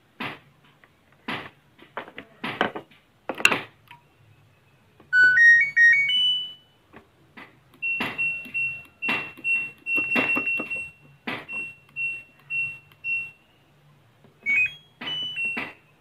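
LG inverter washing-machine control board's buzzer plays its short rising power-on tune, followed by a long run of short beeps at one pitch as the program dial is turned, and a few more beeps near the end. Before the tune there are sharp plastic clicks and knocks as the water-level sensor's plug is handled.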